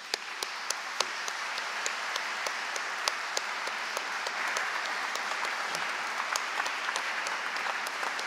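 Audience applauding: steady, dense clapping of many hands, with single sharper claps standing out. It swells in the first moment and holds even throughout.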